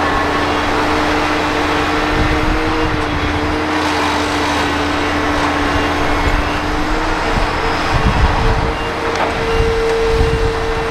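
Large Hitachi hydraulic excavator's diesel engine running under load, with a steady hydraulic whine, as it swings a bucket of soil over a dump truck. Near the end, soil drops into the steel truck bed with a few irregular thuds.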